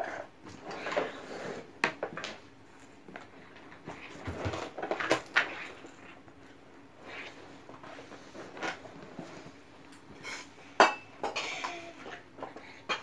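Scattered clinks and knocks of kitchen utensils and dishes, with soft rustling, as dough is worked by hand on a floured board. One sharp knock about eleven seconds in is the loudest.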